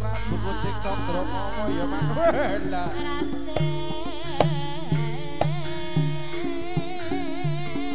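Live East Javanese jaranan ensemble music: drum strokes about twice a second under steady held gong-chime notes, with a wavering lead melody on top. A deep low note dies away right at the start.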